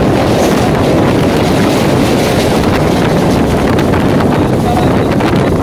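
EMU local train running, heard on board: a loud, steady rush of wheel, track and air noise, with wind buffeting the microphone.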